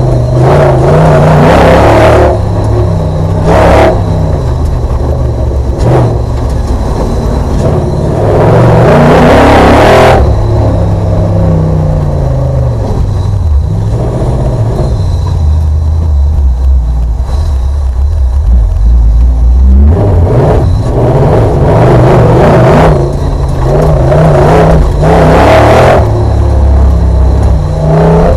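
Audi V8 engine of an off-road racing special, heard from inside the cabin at full effort: the revs climb, break off at gear changes and climb again, over and over. In the middle the pitch drops to a lower drone before the engine pulls hard again near the end.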